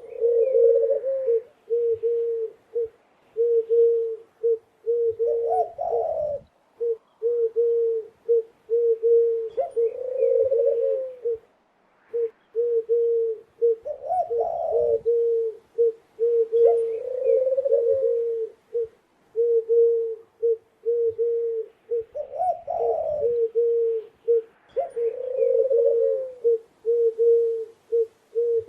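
A dove cooing over and over: runs of short low coos, with a louder, slightly higher coo breaking in every few seconds.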